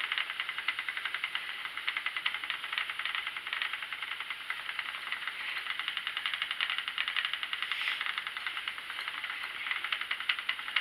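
Schacht Sidekick treadle spinning wheel running steadily while plying yarn: a fast, even run of light mechanical ticks with a soft hiss.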